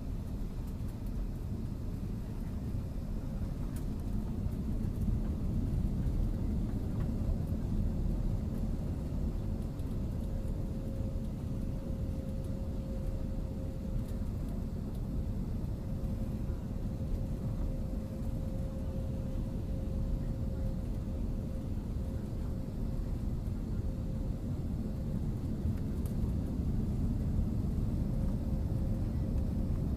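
Airbus A330 cabin noise: a steady low rumble of engines and airflow with a steady mid-pitched hum over it.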